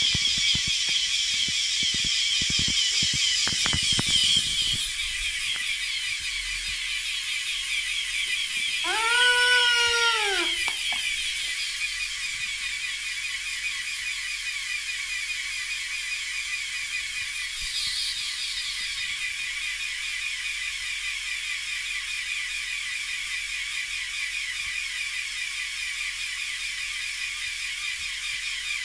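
A LEGO Technic air compressor, several small electric motors driving pneumatic pumps, runs with a steady buzzing chatter, with sharp clicks through the first few seconds. About nine seconds in, a toy bagpipe fed by it sounds one brief reedy note that rises and then sags in pitch over about a second and a half before dying away: the compressor doesn't supply enough air to keep the pipe playing.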